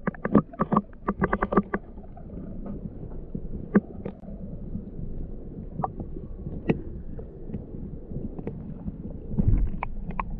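Muffled underwater sound heard from beneath the surface beside a kayak: a steady low rumble of moving water. A quick run of sharp clicks and knocks comes in the first two seconds, single clicks follow here and there, and a louder rush of water swells near the end.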